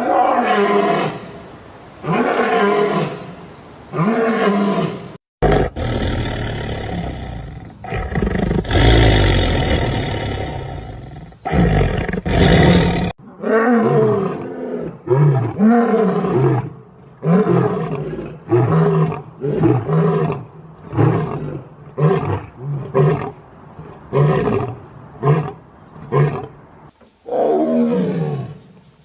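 A large animal roaring in a long series of deep calls, about one a second, with a stretch of rough, continuous noise in the middle.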